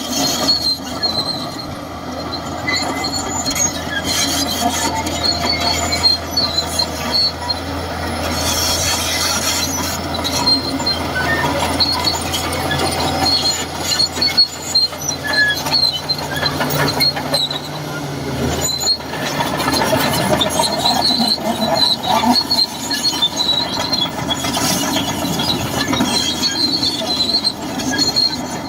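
Shantui DH17C2 bulldozer working: its diesel engine runs steadily while the steel tracks squeal. The engine note rises a little about eleven seconds in and drops back around eighteen seconds.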